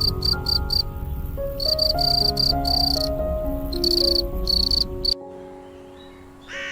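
Cricket chirping in runs of short, high-pitched pulses, about four a second, over a soft background melody. The chirping stops suddenly about five seconds in.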